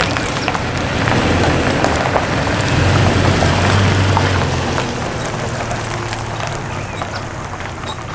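Toyota Tacoma pickup towing a teardrop camper drives past on an asphalt road: engine hum and tyre noise swell, loudest around three to four seconds in, then fade as it moves away.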